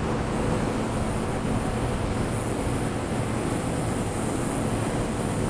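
Strong wind blowing across the microphone: a steady rumbling rush of noise, heaviest in the low end, from the gusts running ahead of an approaching haboob.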